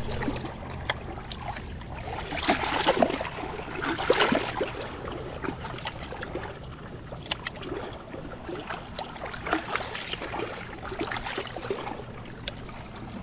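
Irregular rustling, clicks and light splashing of a freshly landed pike and tackle being handled at the water's edge, busiest a few seconds in.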